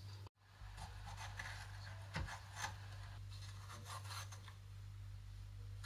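Faint rubbing and scraping of a small kitchen knife cutting into a red bell pepper, with a couple of light clicks a little after two seconds in.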